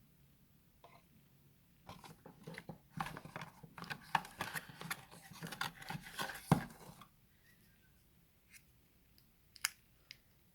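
Accessory packaging being handled and unwrapped: a few seconds of dense crinkling and crackling with a sharp click near the middle, then a few single clicks.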